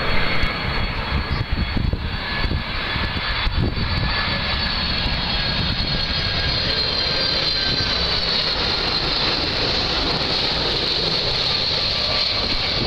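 Boeing 767-300ER's twin turbofan engines on final approach: a steady jet rumble with a high fan whine, growing gradually louder as the airliner passes low toward touchdown.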